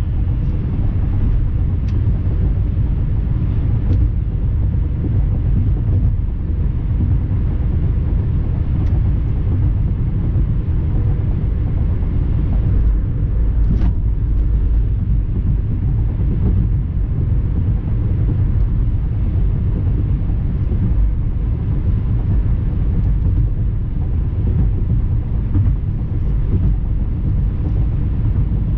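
A car being driven, with a steady low rumble of road and engine noise.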